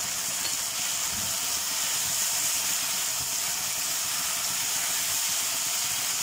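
Drumstick and potato fry sizzling in a hot wok as it is stirred, a steady hiss; the cooking water has boiled off and the vegetables are frying dry.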